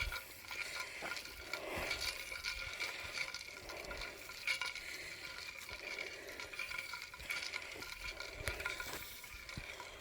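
Footsteps squelching through wet mud, with soft recurring thuds and scattered clicks.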